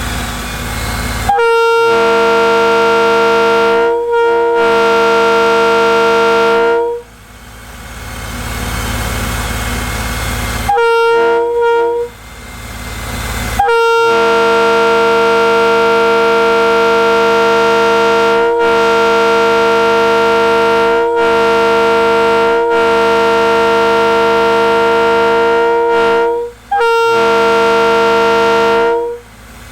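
Leslie RS3K three-chime air horn, a mutt made of 31, 37 and 44 bells with the 37 bell dead, blown in a series of blasts. There are two blasts near the start, a short one about eleven seconds in, then a long one of about thirteen seconds and a final shorter one.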